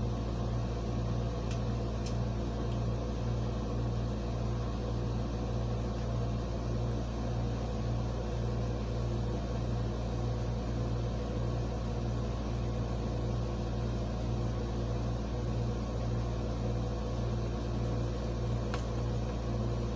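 Window air conditioner running: a steady low hum with an even whir of its fan.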